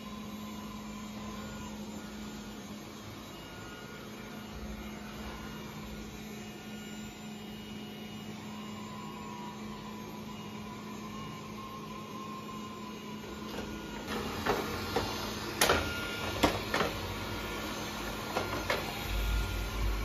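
Mi Robot Vacuum-Mop P robot vacuum running on shag carpet, its suction motor and brushes giving a steady hum. About two-thirds of the way through, several sharp knocks and clicks come over the hum.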